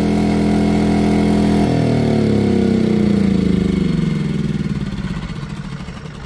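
EcoFlow dual-fuel portable generator's engine, running on LPG cooking gas, shutting down on command. It runs steadily for under two seconds, then its pitch falls as it winds down and fades out over the next few seconds.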